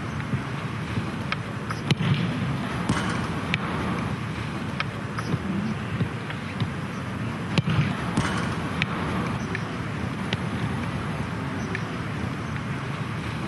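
A football being juggled and kicked: a dozen or so sharp thuds of foot on ball at irregular intervals, over a steady background rumble.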